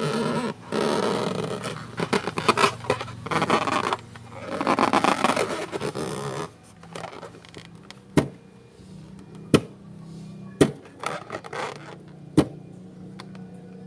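Scraping and rubbing handling noise in uneven runs for about six seconds. After that come sharp single taps or clicks, roughly one every second or so, over a low steady hum.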